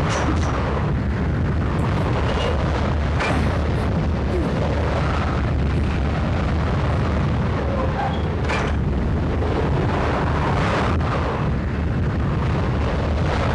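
A continuous deep rumbling roar that holds steady throughout, its weight in the low end, with a few faint short hisses over it.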